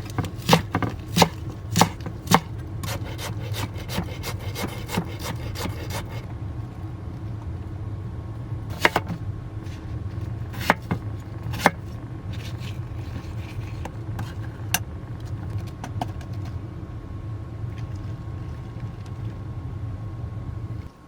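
Knife chopping on a wooden cutting board: a quick run of cuts for about six seconds, then a few scattered, slower cuts. A steady low hum runs underneath.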